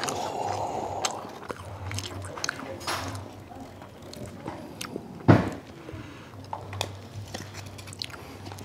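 Metal serving tongs working saucy spaghetti out of a baking dish and onto a paper plate: wet squishing of the pasta and light clinks, with one sharp knock about five seconds in, over close-up chewing.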